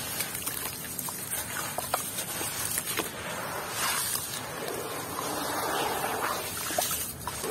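Hands crumbling a soaked, gritty block in a basin of muddy water, with small grit crackles and wet squelching. About halfway through, the water sloshes and swirls as the broken pieces are pushed under and stirred.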